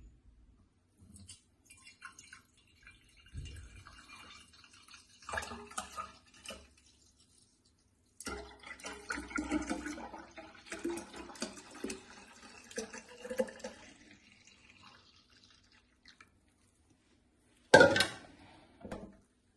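Homemade juice being poured into a bottle: an uneven stream of trickling and splashing that comes and goes, heaviest in the middle, then one sharp knock near the end.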